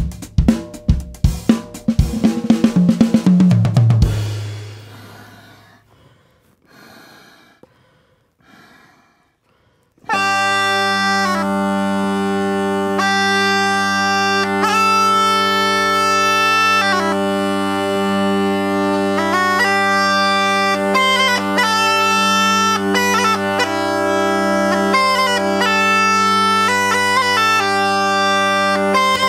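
An intro jingle's drum kit and cymbal hits ring out and fade away over the first few seconds, followed by a short quiet stretch. About ten seconds in, an Estonian bagpipe (torupill) starts and plays a melody on the chanter over steady low drones.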